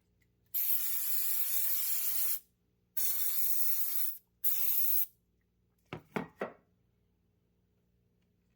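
Aerosol cleaner sprayed onto a mass air flow sensor in three hissing bursts: a long one of about two seconds, then one of about a second, then a short one. The sensor is being cleaned as part of a tune-up for a rough idle.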